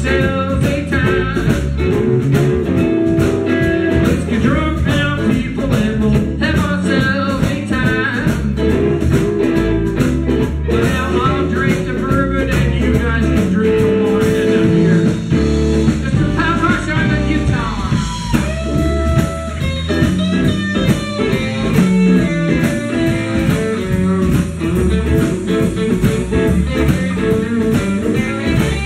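Live blues band playing a song, with guitar to the fore over a steady beat.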